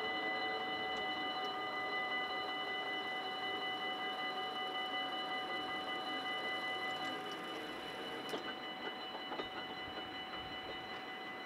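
Level-crossing warning bells ringing rapidly and steadily while the crossing's barriers come down. A single short knock is heard about eight seconds in.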